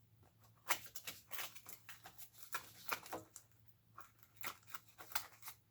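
Handling noise: a run of irregular light clicks, taps and rustles as a nail gun and its nail strips are moved about.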